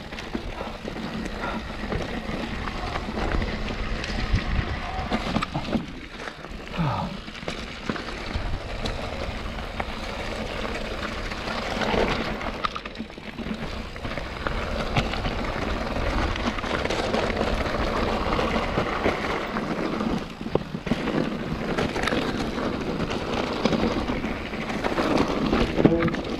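Full-suspension Orange Four mountain bike riding down a rough, rocky trail: continuous tyre noise over stones with frequent knocks and rattles as the bike hits rocks and drainage ditches.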